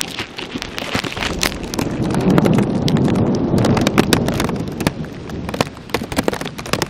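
Heavy rain, its drops striking the plastic bag wrapped over the camera in irregular sharp taps over a steady hiss of rainfall. A low rumble swells in the middle.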